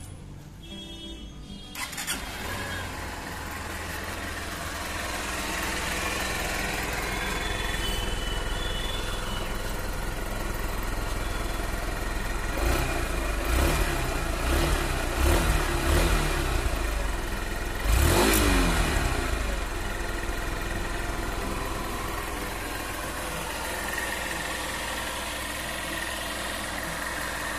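Honda CB Unicorn 160 BS6's fuel-injected 162.7 cc single-cylinder engine starting about two seconds in, then idling through the stock exhaust. It is revved several times in the middle, the sharpest rev about two-thirds of the way through, and falls back to a steady idle.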